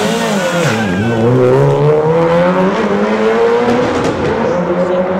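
Mitsubishi Lancer Evolution VII's turbocharged four-cylinder accelerating away in a tunnel. The revs dip sharply about a second in, then climb steadily.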